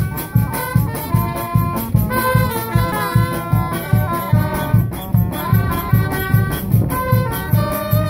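Street brass band playing: trumpet, clarinet, saxophones, trombone and sousaphone carry the tune over a steady bass drum beat of about two and a half beats a second.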